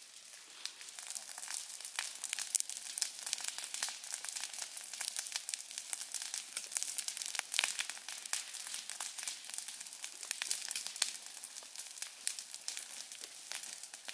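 Dense, irregular crackling: many small sharp clicks and snaps, running on without a break.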